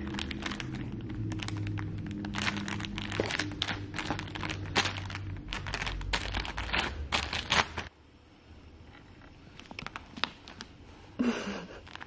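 A soft plastic baby-wipes pack crinkling as a baby's hand grabs and pats it: a dense run of sharp crackles for about eight seconds, then much quieter with only a few scattered crinkles.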